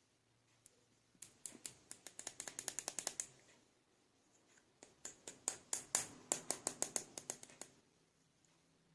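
Two runs of quick, sharp little clicks, each two to three seconds long, from small plastic toys being handled.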